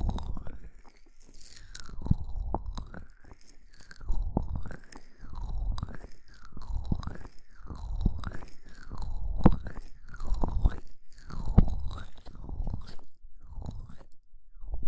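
Hands rubbing and stroking the ear pieces of a binaural ASMR microphone right at the mic. It makes a sweeping friction sound that rises and falls about once a second, with soft low thumps as the palms press on.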